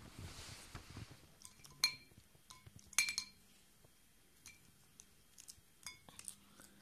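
Clear glass bowl clinking as a cat eats from it, its teeth and the food knocking the glass: a scatter of short, ringing clinks, the loudest about three seconds in.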